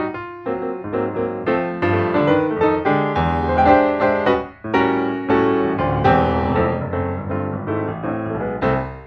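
Background piano music: a steady run of struck notes, several a second, fading out near the end.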